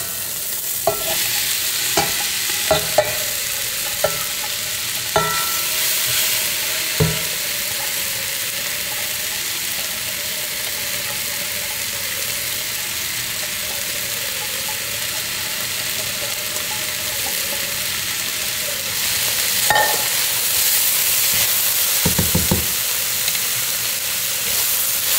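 Garlic-and-tomato sofrito sizzling steadily in a pot as soaked green split peas are stirred into it. A spoon clinks against the pot several times in the first seven seconds and knocks a few more times around twenty seconds in.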